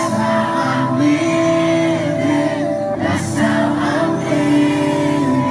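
Live hip-hop concert music over the venue's sound system, with long held sung notes over a steady low bass.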